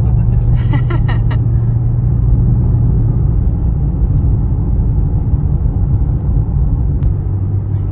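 Ferrari 812 Superfast's naturally aspirated V12 running at low revs while driving, heard from inside the cabin as a steady low drone, easing a little about three seconds in.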